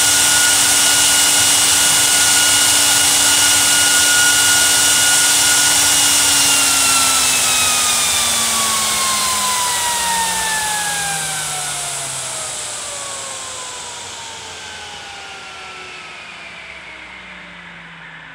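EBM Papst Diaforce 120 high-power 48 V fan running flat out with a loud rush of air and a steady whine, then, about six seconds in, slowing as its PWM speed is turned down: the whine falls steadily in pitch and the air noise fades.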